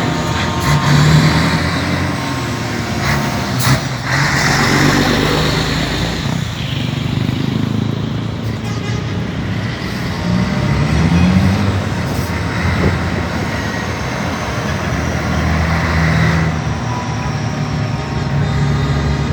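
Heavy truck engines running loudly, with one revving up about ten seconds in.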